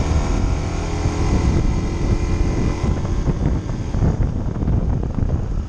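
Motorcycle engine running at steady speed under heavy wind buffeting on a helmet-mounted microphone; the steady engine note breaks up about three seconds in.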